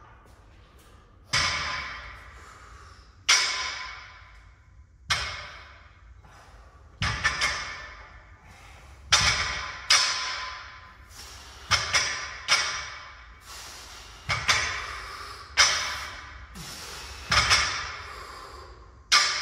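Loaded barbell clanking with each rep of a seal row: sharp metallic hits about every two seconds, some in quick pairs, each ringing briefly.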